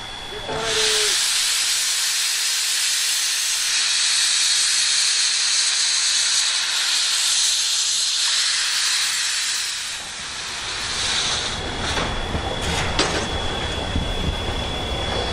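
8620-class steam locomotive blowing steam from its cylinder drain cocks, a loud steady hiss that starts about a second in and dies away near ten seconds. After that comes a low rumble with a few clanks as the locomotive gets under way.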